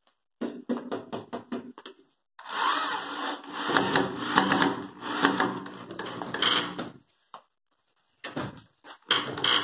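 Corded electric drill working into the edge of an MDF cabinet panel during carcass assembly: a few short blips, then the motor runs for about four and a half seconds with its speed rising and falling under the trigger, then short bursts again near the end.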